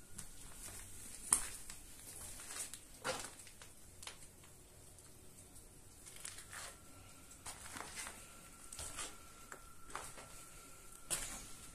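Footsteps crunching and scraping over a floor littered with plaster and rubble, in irregular steps with a sharper crack a little over a second in.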